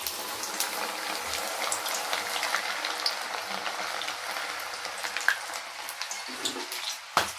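Peeled, soaked field beans (pithiki pappu) deep-frying in hot oil in a kadai, sizzling with a dense, steady crackle from the bubbling oil. A single sharp knock near the end.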